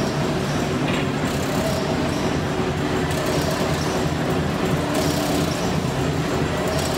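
Automatic hexagonal wire mesh weaving machine running, a steady mechanical din as it twists wire into hexagonal mesh.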